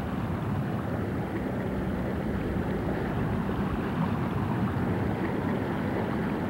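A steady, low rushing noise.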